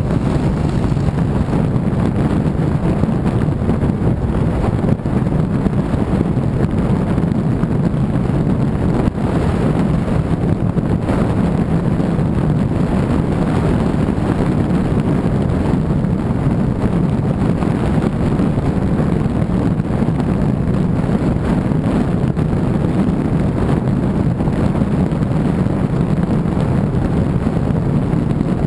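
Steady engine, tyre and wind noise of a car cruising at a constant speed, heard from inside the car.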